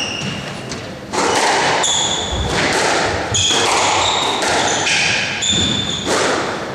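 Squash rally: the ball striking rackets and the walls with sharp thuds, and players' shoes squeaking on the wooden court floor in several short, high chirps through the rally.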